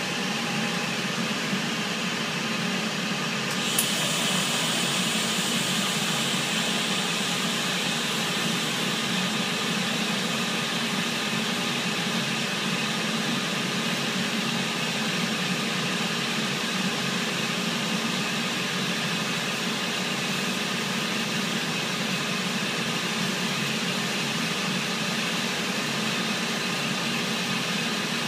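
A steady hum of shipboard ventilation and machinery. About four seconds in, a TIG welding arc strikes with a sharp click and then burns with a steady hiss while the vent pipe is welded to the slip coupling.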